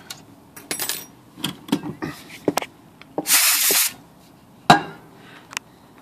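Sharp metallic clicks from a Smith Corona typewriter's escapement, worked by hand as the once-sticking pawl, freed of old oil or rust, springs back against the star wheel. There is a short hiss in the middle and one louder click near the end.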